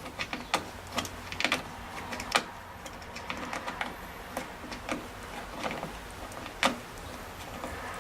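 Pliers gripping and turning a long door-hinge screw that spins loose in its stripped hole, giving a scattering of irregular sharp clicks and small scrapes of metal on metal.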